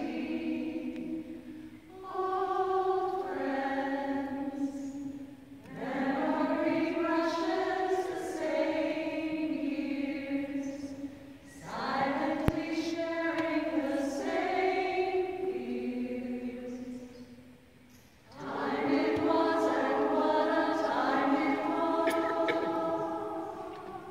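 Women's a cappella group singing in close harmony without accompaniment, in several phrases with brief breaks between them.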